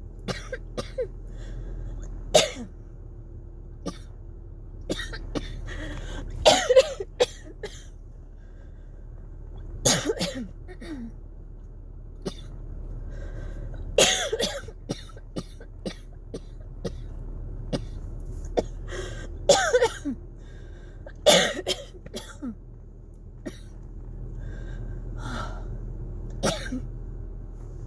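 A woman's dry coughing fit, a flare of cough variant asthma: hacking coughs come every few seconds, some single and some in quick runs of two or three, with short pauses between bouts.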